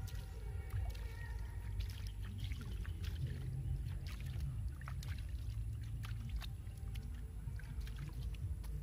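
Hands working in dry grass and soil at a hole in the ground, making scattered light rustles and clicks over a steady low rumble.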